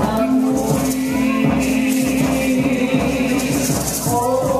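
Polynesian dance music with shaken rattles keeping a fast, steady rhythm under long held notes; one note is held for about the first second and a half.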